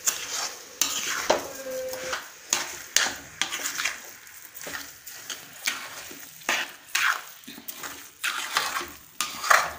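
Metal spoon stirring and scraping a moist mass of grated carrot, khoya and freshly added sugar around an aluminium kadhai, in repeated strokes about once a second, mixing the sugar into the halwa.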